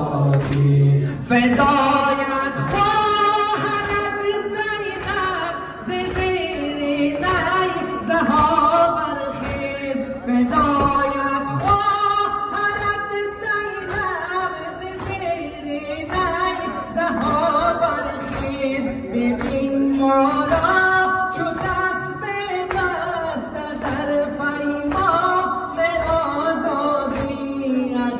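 Unaccompanied Muharram lament (noha) sung by a lead voice, with the gathered mourners' voices joining in.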